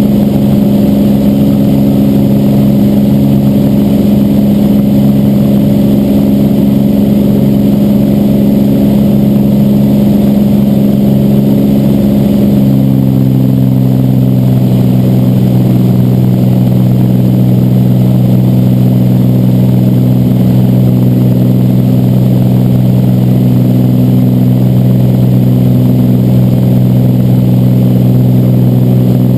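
Cessna 206's six-cylinder piston engine and propeller running at high power during the departure climb, heard from inside the cabin as a loud, steady drone. About twelve seconds in, its pitch drops a little and then holds steady again.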